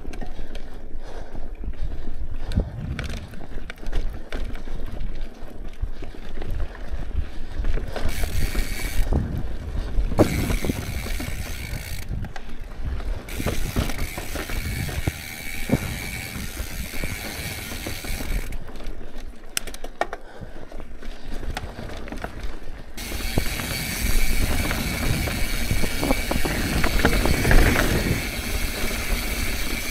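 Santa Cruz mountain bike's rear freehub ratcheting with a steady high buzz while coasting downhill, coming and going in stretches and longest near the end, over a constant rumble of tyres on rock and sharp clattering knocks from the bike on the rough trail.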